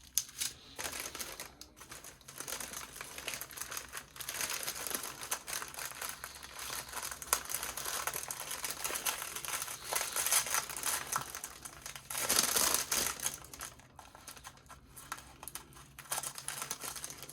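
Plastic packaging of diamond-painting drill bags crinkling as they are handled, with a louder stretch of crinkling about twelve seconds in.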